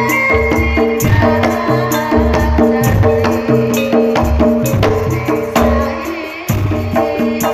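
Javanese traditional ensemble music: saron-type keyed instruments struck with wooden mallets play a busy melody over a drum beat about once a second, with cymbal strokes and a held low note that drops out briefly about six seconds in.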